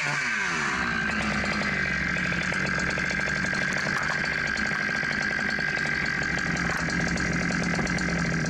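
Long gas chainsaw running steadily while cutting through the base of a large Douglas fir trunk on the final cut. Its pitch sags slightly in the first second as it loads into the wood, then holds steady.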